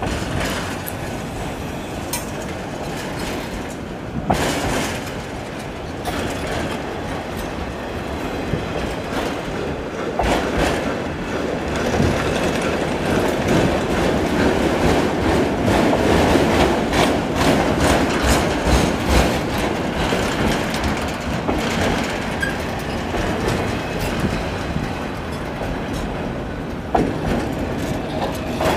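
Autorack freight cars of a passing train rolling by, steel wheels clicking over rail joints over a steady rumble that is loudest about halfway through.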